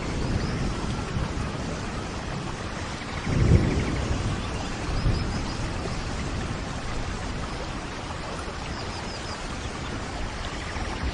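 Steady rain, with a low roll of thunder swelling about three and a half seconds in.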